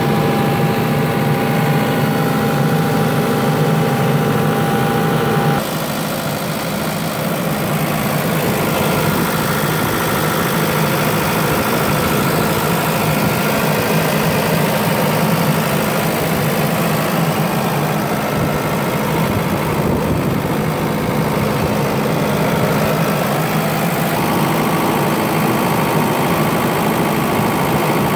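Isuzu 4LE2 four-cylinder diesel engine of a John Deere 75D excavator, running steadily, heard up close in the open engine compartment.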